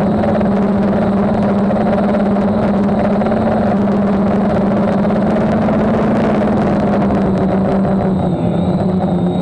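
DJI F550 hexacopter's brushless motors and propellers running steadily in flight, heard from the camera mounted on its frame: a loud, even hum whose pitch drops slightly about eight seconds in.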